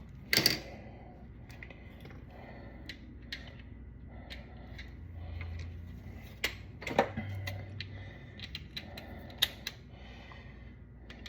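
Scattered metallic clicks and ticks from a ratchet torque wrench being worked on an oil drain plug, with a sharp louder click about half a second in and a few more in the second half.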